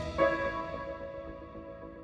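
Background music: a soft ambient note struck and slowly fading.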